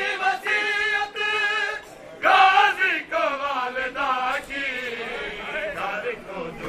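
Men's voices chanting a noha, a Shia mourning lament, in loud sung phrases with held notes, over rhythmic chest-beating slaps of matam about twice a second.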